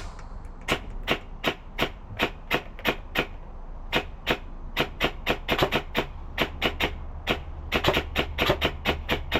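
Airsoft gun firing single shots in quick succession, about three a second with a brief pause a third of the way through, while it is sighted in and its hop-up is set.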